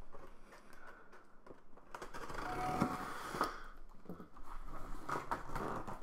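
A knife blade slitting packing tape along a cardboard box's seam: a scratchy scraping lasting about a second and a half, a couple of seconds in. Near the end come rustles and crackles as the cardboard flaps are pulled open.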